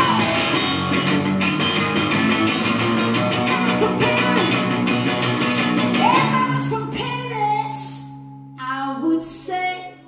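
Live rock song played on electric guitar, with a woman singing, coming to its ending. About two-thirds of the way in the full sound drops to a held, ringing chord, and a few last struck chords ring out near the end.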